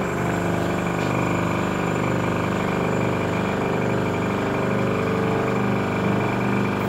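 Small air compressor for an airbrush switching on suddenly and running steadily: an even motor hum with a hiss of air.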